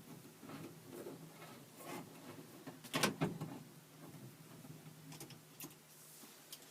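A Phillips screwdriver working the screws out of a sliding door's lock latch: scattered light clicks and scrapes of metal, with a sharper knock about three seconds in, over a faint steady hum.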